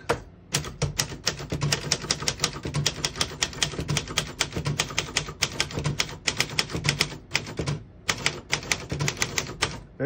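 1962 Royal Dart manual portable typewriter being typed on: a fast run of sharp keystroke clacks, several a second, with a short pause near the end. The keys strike cleanly, none skipping or sticking.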